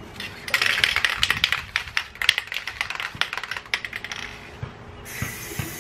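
Aerosol can of clear coat being shaken hard, the mixing ball inside rattling in quick clicks; near the end a hiss as spraying begins.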